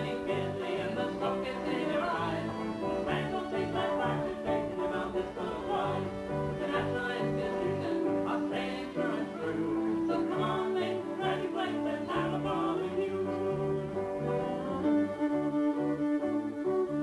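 Live band playing an instrumental passage: two fiddles carry the tune over guitar and a steady, bouncing bass line.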